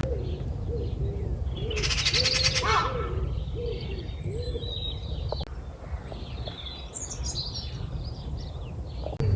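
Birdsong: a pigeon's repeated low cooing for the first few seconds, with a fast buzzy trill from a small songbird about two seconds in and scattered high song notes later. A steady low rumble runs underneath.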